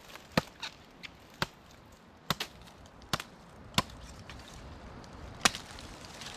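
Machete chopping into a thick woody vine: a run of sharp, irregular strokes, about nine in all, the hardest ones one to two seconds apart.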